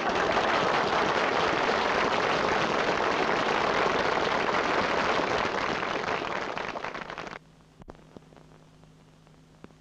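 Theatre audience applauding, cut off abruptly about seven seconds in, leaving only a faint low hum.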